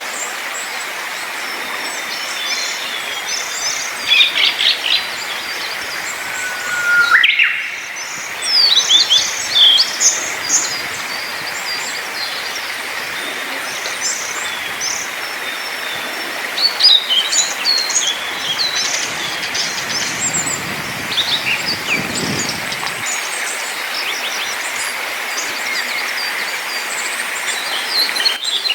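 Several small forest songbirds chirping and singing together, short high calls and trills coming thick and overlapping, over a steady background hiss. A short rising whistle sounds about seven seconds in, and a low rumble passes under the birds for a few seconds past the twenty-second mark.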